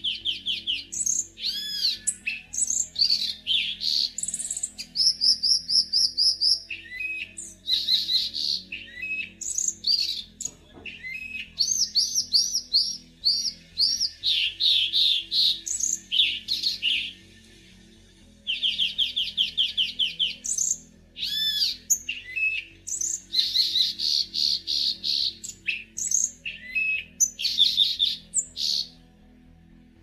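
A euphonia singing a long, varied song of quick sweet whistles, slurred chirps and chattering trills, phrase after phrase with a brief pause past the middle.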